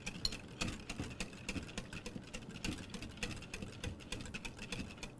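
Wire whisk beating instant pudding and milk in a glass bowl, its wires clicking rapidly and irregularly against the glass as the pudding thickens.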